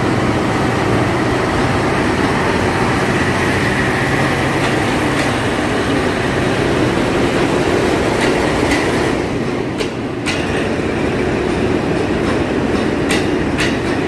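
Kiha 183 diesel multiple unit pulling out under power, its diesel engines running steadily as the cars roll past. From about ten seconds in, the wheels click sharply over rail joints.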